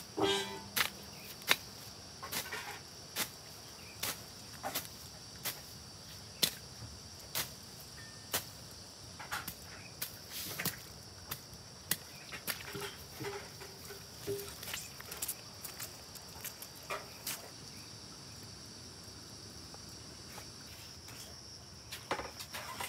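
Insects chirring steadily in a high, even band, with sharp knocks or taps coming irregularly, about one a second.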